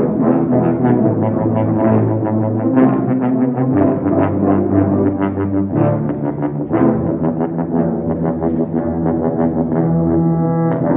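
Tuba and euphonium ensemble playing together: low brass chords moving in a quick, driving rhythm of repeated notes.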